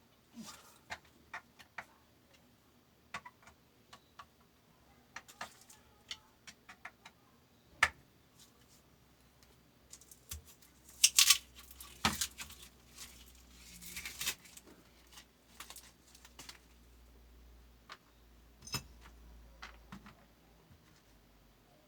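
Scattered clicks and metallic clinks of small metal parts and tools being handled during work on a fabric cutting machine's knife sharpener, loudest in a quick cluster about eleven seconds in.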